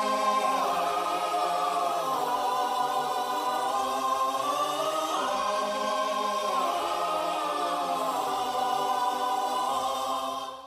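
Music: a held choir chord with wordless voices slowly shifting pitch, no beat, fading out near the end.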